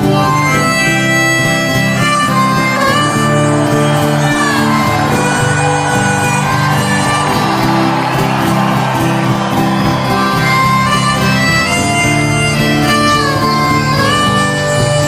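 Instrumental break in a folk song: a harmonica plays a solo of held, bending notes over strummed acoustic guitar.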